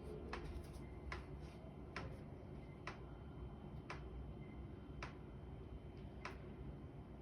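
Faint sharp ticks about once a second, slowly spacing out, over a low steady hum of room noise.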